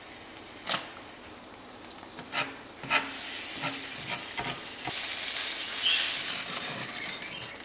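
An egg frying in a hot pan: a few sharp taps, then sizzling that builds from about three seconds in and is loudest a little after halfway.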